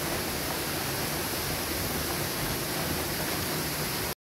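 Steady, even rushing noise with no separate events, which cuts off abruptly to silence about four seconds in.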